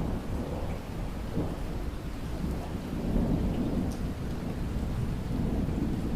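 Steady rain with a continuous low rumble underneath, rising and falling in strength, and a few faint drop ticks.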